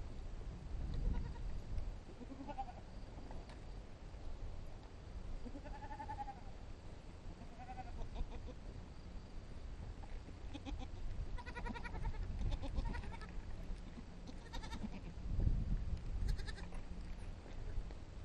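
Several goats bleating in a string of separate calls, some of them quavering, with a low rumble and a few heavy low thumps on the microphone.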